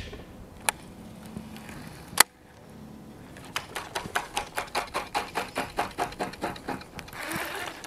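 Fishing reel being cranked, giving a steady run of mechanical clicks about five a second, after a single sharp click about two seconds in.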